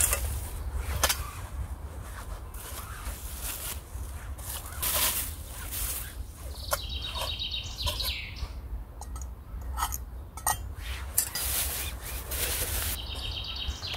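Hands handling camping cookware: clinks and knocks of a nested steel pot and mug, and rustling of a stuff sack and a plastic bag. Over this a songbird sings the same short phrase twice, a quick high trill ending in a falling note.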